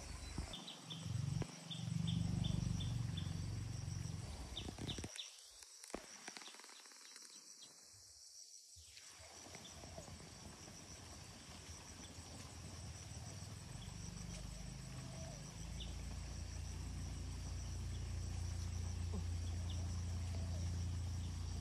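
Insects chirring steadily at a high pitch over a low rumble. The rumble is strongest about two seconds in and grows again through the second half; the whole sound drops out briefly about a quarter of the way in.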